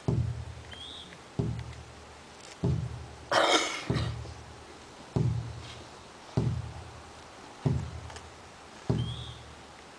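A large drum beaten in a slow, even beat, about one stroke every second and a quarter. Each stroke is a deep boom that dies away. A short rasping burst of noise comes about three seconds in.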